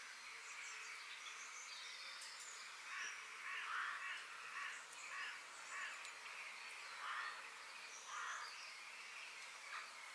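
Forest birds calling and singing: a run of rough, noisy calls about once a second through the middle, with short high chirps and whistles scattered around them, over a steady hiss.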